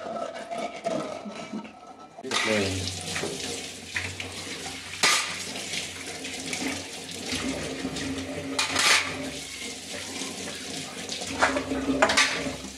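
A hand rubbing a clean, degreased stainless steel tumbler, giving a faint squeak, the squeak of soap-free steel. About two seconds in, a kitchen tap starts running into a steel sink, with three sharp clanks of stainless steel dishes.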